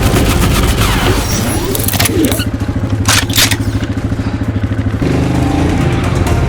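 Background music with a steady beat, broken by a few sharp hits about two and three seconds in.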